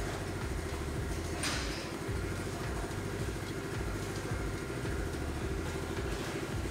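Background music with a steady beat and a bass line that steps between notes, with a brief hiss about a second and a half in.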